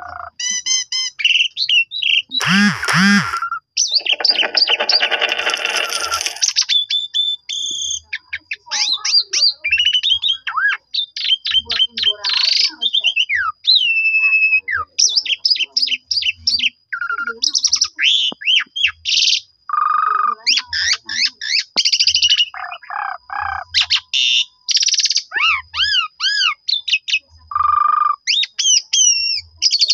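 Asian pied starling (jalak suren) in full, continuous song: a long varied string of whistles, fast sweeping chattering phrases and harsh grating notes. The harshest, loudest stretch comes a few seconds in, and a thin high whistle is held steady under much of the rest.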